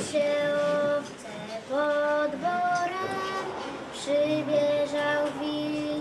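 Young girls singing a Polish folk song unaccompanied, in phrases of long held notes with short breaths between them.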